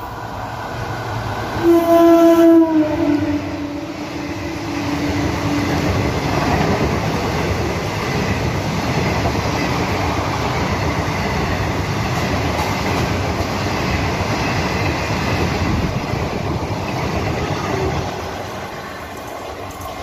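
Indian Railways electric locomotive sounding a long horn blast about two seconds in, the loudest moment. The steady rumble and clickety-clack of the locomotive and its sleeper coaches running past at speed follows, then drops away near the end.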